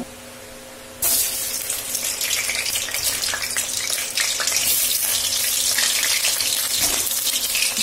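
Boiled whole potatoes sizzling and crackling in hot mustard oil in a kadai as they are dropped in to fry. The loud sizzle starts suddenly about a second in and keeps going with a dense spatter of small crackles.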